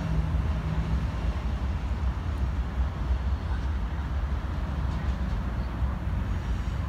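Freight train of tank wagons passing on a far track, a steady low rumble, with a low hum that fades about a second in.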